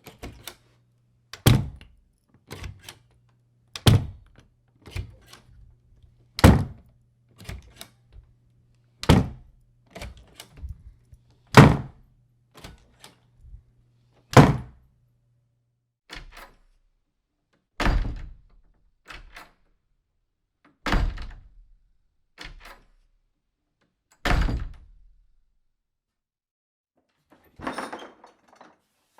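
A door shut again and again: nine solid thunks, roughly every three seconds, each with lighter latch and handle clicks around it. A low hum runs under the first half, and a softer, longer scraping sound comes near the end.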